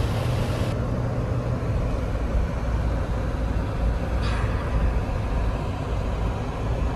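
Steady road and engine noise inside a Suzuki Jimny's cabin while it is driven on an expressway: a low rumble under an even hiss.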